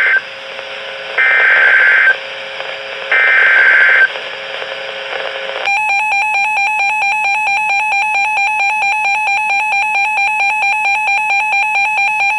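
Emergency Alert System alert over NOAA Weather Radio: a rapid screeching SAME digital header burst repeated about every two seconds over radio hiss, then a loud, rapidly pulsing electronic alert tone about halfway in, the attention signal that heralds a severe thunderstorm warning.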